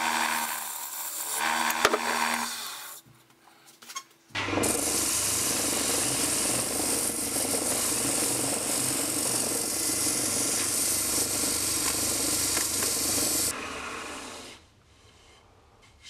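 Wood lathe spinning a basswood disc, first with a gouge cutting across its face, then after a brief pause a round sanding pad pressed against the spinning face. This gives a steady, loud sanding hiss for about nine seconds, which fades and stops near the end.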